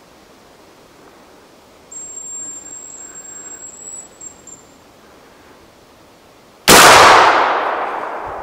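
A thin, high whistle of a hazel grouse call lasting about three seconds, then near the end a single loud shotgun shot that fades away slowly.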